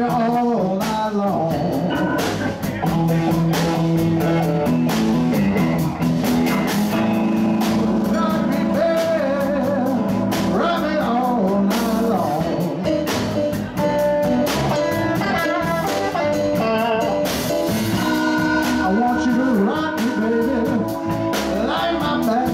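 Live band of electric guitar, electric bass, drum kit and keyboard playing a blues-style number, with a steady drum beat under long held notes.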